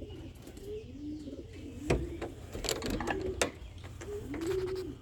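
Pigeons cooing, low rounded calls repeating one after another, with a few sharp clicks in the middle.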